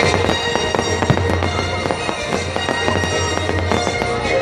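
Fireworks crackling and banging in quick succession, with a sharper bang about a second in, over music.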